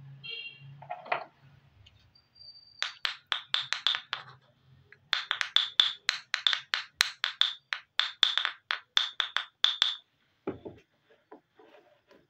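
Miniature toy rolling pin clicking against a small red plastic rolling board. It makes rapid light clicks, about six a second, in a short run and then a longer run of about five seconds, followed by a single knock near the end.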